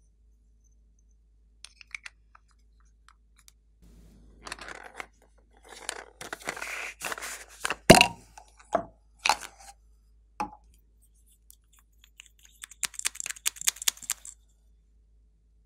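Small plastic containers being handled and opened: rustling and light taps, then a sharp click about halfway through as the lid of a plastic cup-shaped toy container comes off, the loudest sound. Near the end, a quick run of fine clicks as the cap of a liquid matte lipstick tube is pulled off.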